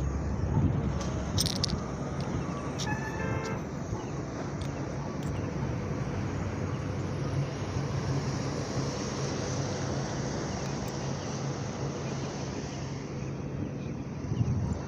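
Motor vehicle engines running steadily with road traffic noise, and a short vehicle horn toot about three seconds in.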